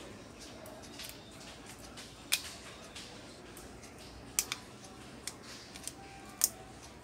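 A pry tool clicking against the frame of a laptop LCD panel as it is worked along the edge. There are several sharp, irregular clicks, the loudest about two and a half seconds in and near the end.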